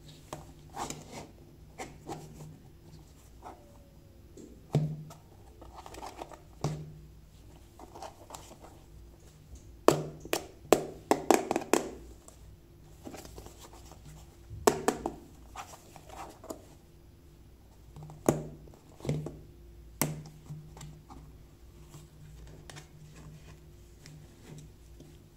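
Hands handling a small hard plastic carry case: scattered sharp clicks and knocks of plastic on plastic, densest about ten to twelve seconds in, as the case's latches are snapped open and the lid is lifted.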